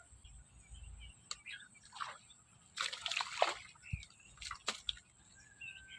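Water splashing and sloshing in irregular bursts, the biggest about three seconds in, as a hooked tilapia fights at the surface, with a few sharp clicks.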